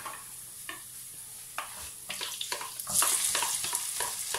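Garlic frying gently in oil in a pan, with light crackles. About three seconds in, chopped onion is tipped in from a plastic bowl and the oil sizzles up loudly, while a spoon taps and scrapes against the bowl and pan.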